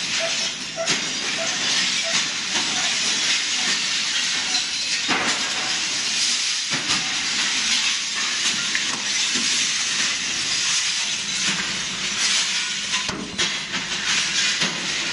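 Steady, loud hiss of factory machinery. A light, regular ticking fades out in the first second or two, and a few sharp clicks come through, one near the end.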